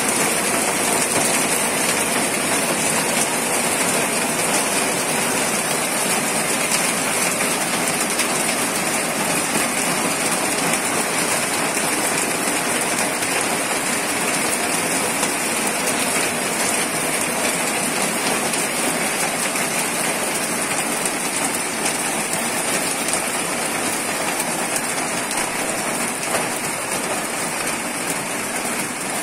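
Heavy tropical downpour: torrential rain pouring down in a steady, dense hiss.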